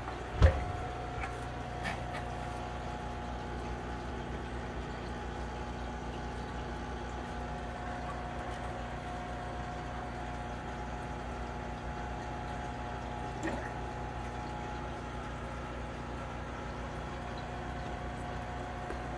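Aquarium filter and pump running: a steady hum with a faint held tone and water trickling. A single sharp thump comes about half a second in, with lighter knocks later.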